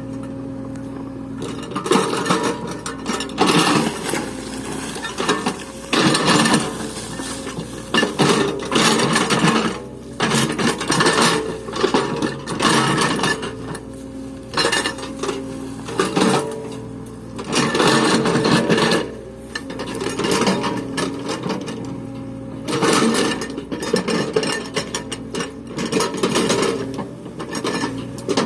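Backhoe's diesel engine running steadily, with loud rough scraping bursts every second or two as the machine works the ground.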